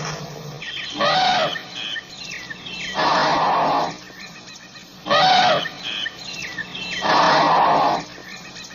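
African elephant calls repeating about every two seconds, alternating a short pitched call with a longer, noisier blast, the pair repeating twice. Faint chirps sound between the calls.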